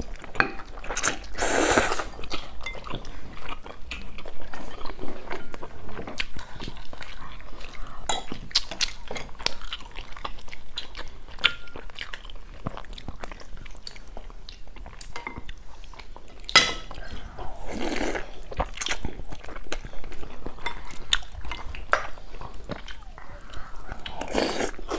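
Close-miked eating of noodle soup: chewing and wet mouth sounds with many small clicks of chopsticks, spoon and fork against bowls, and a few short slurps of noodles.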